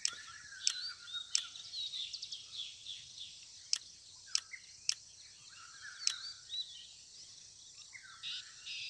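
Wild birds calling with short chirps and hooked whistles over a steady high insect hiss. A few sharp clicks fall at irregular intervals.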